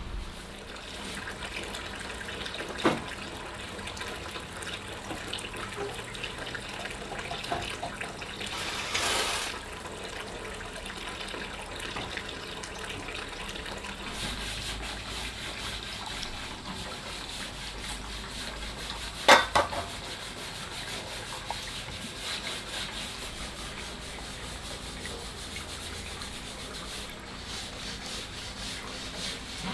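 Steady rubbing and scraping, with a sharp knock about three seconds in and a louder one near twenty seconds, and a short rush of noise around nine seconds in.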